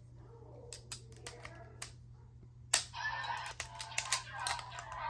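Plastic collectible arcs and their packaging being handled: scattered light clicks, one sharp click a little before three seconds in, then rustling with quick clicks as the pieces are turned over.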